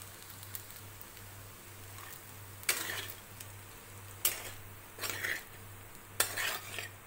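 A spoon scraping against cookware in four short strokes, starting nearly three seconds in, as salt goes into a kadhai of poha and noodles, over a steady low hum.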